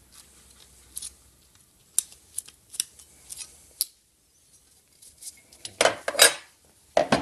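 Pliers working a thin, bent sheet-metal safety cover to straighten it: a run of sharp metallic clicks and clinks. About six seconds in comes a louder scraping clatter as the cover is put down on the bench, then one more knock near the end.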